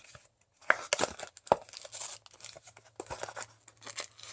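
Anime blind-box packaging being torn open and crinkled by hand, irregular crackling with a few sharp snaps.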